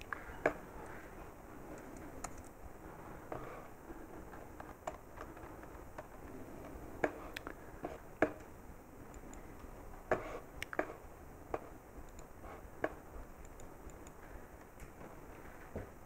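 Irregular clicks and taps of a laptop being worked by hand, about a dozen sharp ones spread unevenly through the stretch, over faint room noise.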